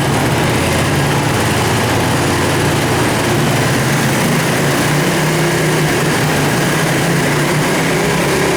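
Small 50cc two-stroke ATV engine running steadily.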